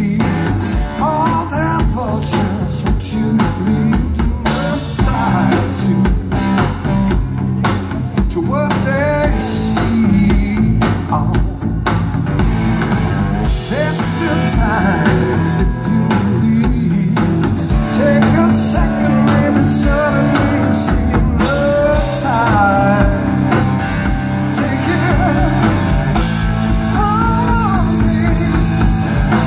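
Rock band playing live and loud: electric guitar, bass guitar and drum kit, with a high line that bends and wavers above the band.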